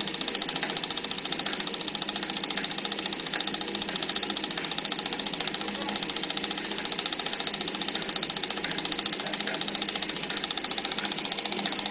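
Pathé Pathex Model C 9.5mm film projector running under its electric motor: the claw and shutter mechanism make a fast, steady mechanical clatter.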